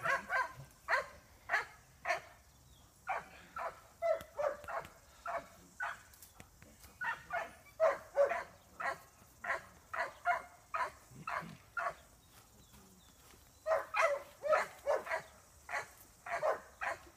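Dog barking repeatedly in short sharp barks, about two a second, with a brief pause about two-thirds of the way through.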